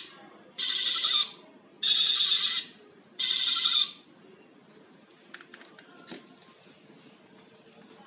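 Alpaca-head LED ball pen's built-in sound chip playing short, loud electronic sound bursts, three in the first four seconds about a second apart, then a few faint clicks.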